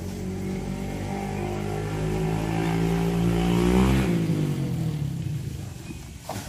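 An engine passes close by. Its note climbs as it approaches, is loudest about four seconds in, then drops in pitch and fades as it goes past.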